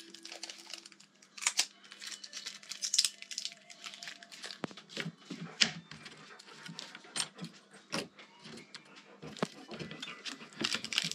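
Hand work with small parts at a workbench: scattered clicks, taps and rustles, with a faint steady hum through the first half.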